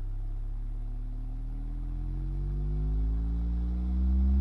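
Six small 2.75-inch Bose VideoWave II subwoofer drivers in their metal chamber playing a low sine-wave test tone from a frequency generator. The tone rises slowly in pitch and grows louder, with a stack of overtones above it.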